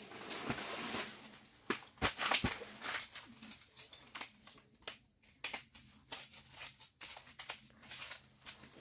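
Rustling of a nylon winter jacket with scattered taps and knocks as a small cutthroat trout is handled on the ice and picked up with a fish gripper. The loudest knocks come about two seconds in.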